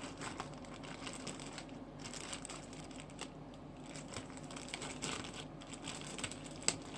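Sticky slime being handled and pulled out of its plastic container or bag: irregular small clicks, pops and crinkles, with one sharper click near the end.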